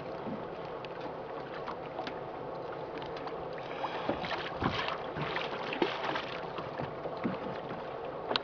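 Water slapping and splashing against the side of a small fishing boat, with scattered short knocks and wind on the microphone.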